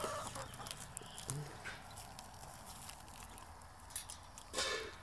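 Backyard chickens clucking faintly, with scattered soft clicks and a brief louder noise near the end.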